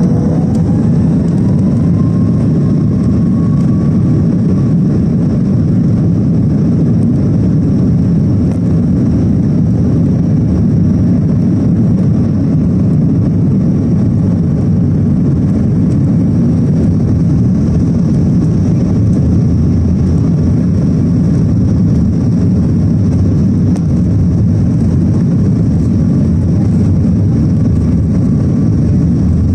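Jet engines of a SpiceJet Boeing 737 heard from inside the cabin during the takeoff roll: a loud, steady rumble, with an engine whine rising in pitch over the first few seconds as thrust builds.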